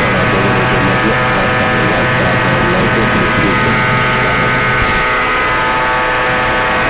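Two-stroke aircraft engine of a Buccaneer II ultralight running steadily in flight, a loud drone made of many steady tones. It is picked up through the headset and radio microphone, which has no noise cancelling set. A low part of the drone drops out about five seconds in.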